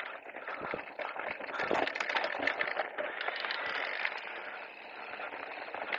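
Riding noise of an e-mountain bike picked up by a small action camera on the rider: a steady rushing of tyres over rough ground, with many small crackles and rattles.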